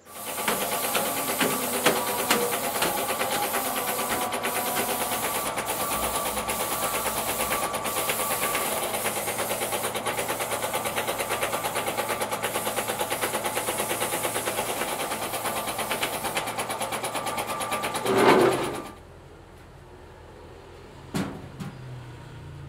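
Compressed-air paint spray gun hissing steadily while black paint is sprayed onto a steel wheelbarrow tray, with a fast even pulsing underneath. It stops abruptly after a short louder burst near the end, followed by a single knock.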